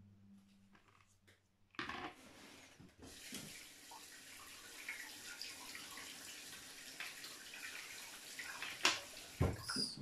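Water running, as from a tap, starting about two seconds in and going on steadily, with a sharp knock near the end.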